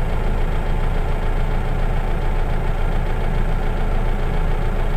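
Manitou telehandler's diesel engine running steadily, heard from inside the cab, while the hydraulic boom is being retracted.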